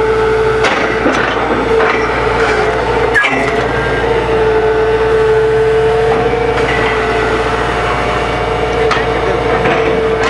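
Truck-mounted borewell drilling rig running steadily, a constant high whine over its engine drone, with a few short knocks.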